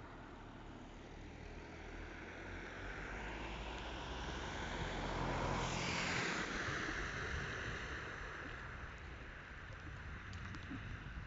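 A vehicle passing on a wet road: tyre hiss swells to a peak about six seconds in, then fades away.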